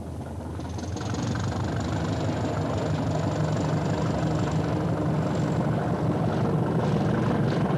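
Diesel-electric multiple unit train running past, its underfloor diesel engine giving a low rumble that grows louder over the first few seconds as it approaches, then holds steady.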